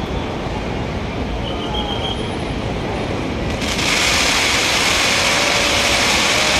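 Fireworks display: a continuous low rumble of bursting shells and crackle. A little past halfway a loud, steady hiss of crackling sparks joins in and the sound gets louder.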